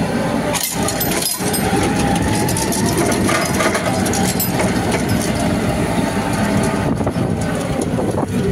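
Mitsubishi Grendia forklift's engine running as the forklift drives on its automatic transmission, the engine note rising and falling steadily throughout.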